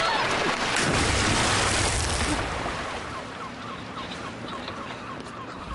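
A car plunging off a quayside into river water: a loud splash for about two seconds, then quieter churning and lapping of water as the car floats.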